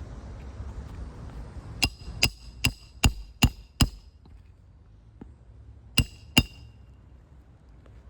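Hand hammer driving roofing nails back into a three-tab asphalt shingle: six quick strikes about two to four seconds in, then two more a couple of seconds later, each with a short metallic ring.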